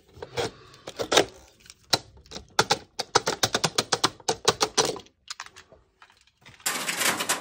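Rapid plastic clicking and knocking as circuit breakers are worked off a metal DIN rail in a fuse box, in quick runs of clicks. A short burst of rustling noise comes near the end.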